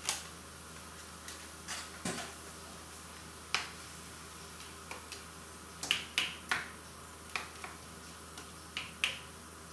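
A black ladle knocking and scraping against a stainless steel wok while chicken and pineapple in sauce are stirred: irregular sharp clacks, at times two or three within a second, over a faint steady hum.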